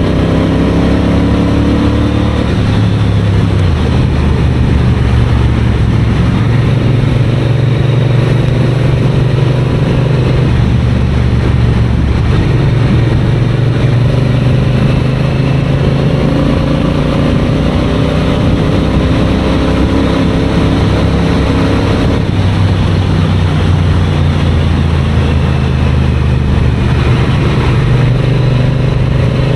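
Triumph Bonneville parallel-twin engine running on the road. Its note climbs slowly under throttle and drops back in steps several times.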